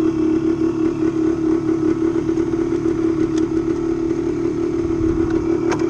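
Suzuki TSR motorcycle engine running steadily at an even pace while riding a sandy dirt trail. A single sharp click is heard near the end.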